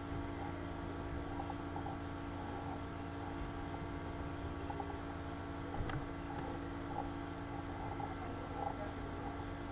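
Steady electrical mains hum with faint background hiss; a faint click a little before six seconds in.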